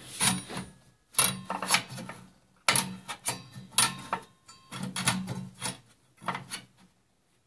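Knocks and scrapes of a large metal-armed digital protractor being handled and slid into place against a table-saw blade on the saw's metal table. The sound comes in irregular bursts of clicks, clatter and rubbing and stops shortly before the end.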